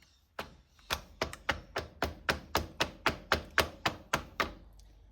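A filled eco resin mould banged repeatedly on the work table: a steady run of sharp knocks, about three or four a second, with a brief pause near the end. Banging like this is done to bring trapped air bubbles up out of the freshly poured mix.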